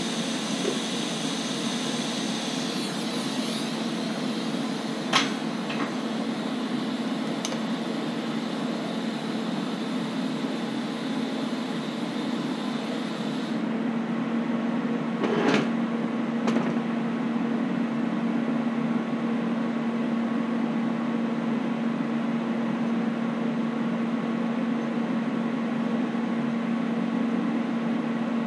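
TIG welding arc buzzing and hissing steadily as steel gusset plates are tacked onto a bracket; the arc cuts off suddenly about halfway through. A steady fan-like hum carries on, with a few sharp metal clinks as the steel parts are handled.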